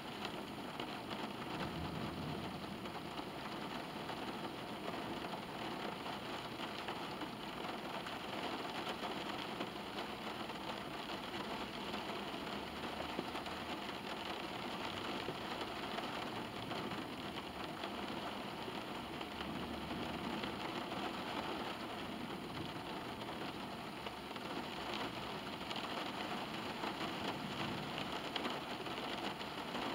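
Steady rain falling on a car's roof and windows, heard from inside the cabin.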